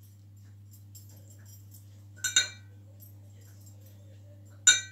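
A pastry brush clinking against a small glass of milk as it is dipped: a quick double clink about two seconds in and a single clink near the end, each ringing briefly.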